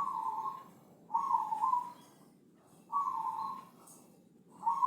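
Javanese perkutut (zebra dove) cooing, a deep, full-voiced song given in short repeated phrases about every one and a half to two seconds, each phrase with a brief break in the middle.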